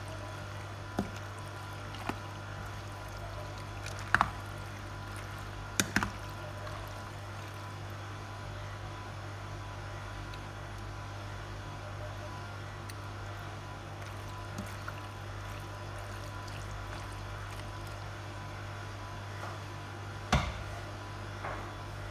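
A spoon stirring creamy macaroni salad in a stainless steel bowl: soft wet squishing, with a few sharp knocks of the spoon against the bowl, mostly in the first six seconds and once near the end, over a steady low hum.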